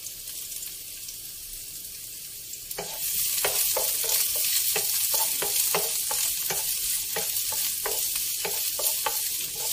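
Sliced onions sizzling as they fry in a non-stick pan, stirred with a wooden spoon. The sizzle gets louder about three seconds in, and from then each stir of the spoon across the pan adds a short scrape, about two a second.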